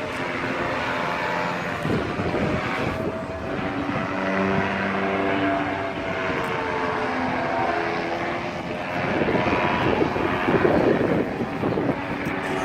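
Powered paraglider's small engine and propeller droning overhead, its note wavering up and down as the pilot works the throttle, growing louder near the end.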